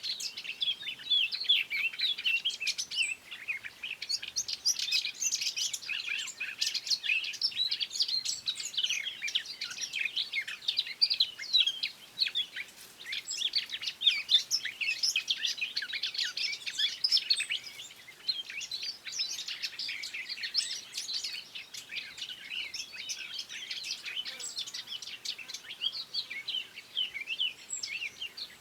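Songbirds chirping and singing in a dense, continuous stream of quick high chirps.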